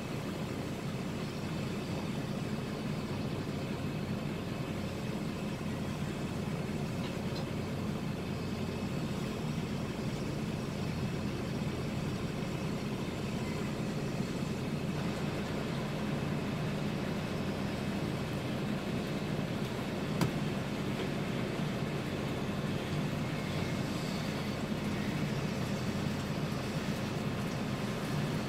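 Truck diesel engine idling, a steady low hum heard from inside the cab, with one brief click about two-thirds of the way through.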